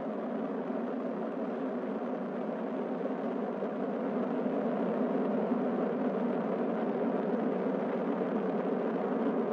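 Falcon 9 first-stage engines during ascent: a steady rushing roar with no breaks, growing slightly louder midway.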